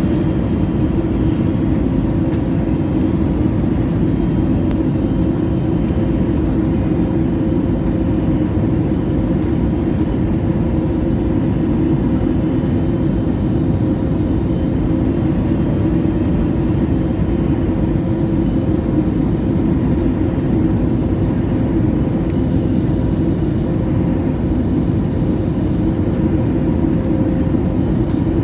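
Airbus A320neo cabin noise on final approach, heard from a window seat beside the engine: a loud, steady rush of engine and airflow with a low hum and faint steady whining tones, unchanging in level.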